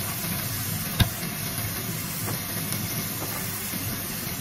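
Tofu and green onions sizzling in oyster sauce in a nonstick wok, a steady hiss. One sharp tap about a second in.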